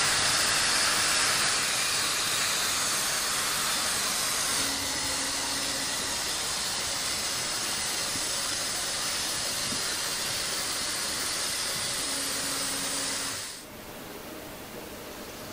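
Bemo H0m model train running on the layout's track, a steady rushing hiss. It drops suddenly to a quieter hiss near the end.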